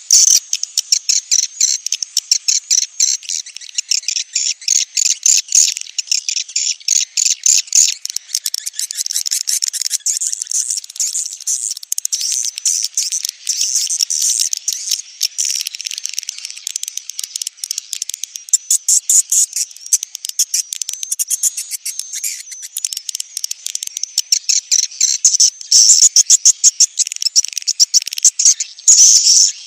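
Swiftlet lure-call recording: dense, rapid high-pitched chirping and twittering of swiftlets, the 'chick-calling' sound played to draw swiftlets to a nesting house.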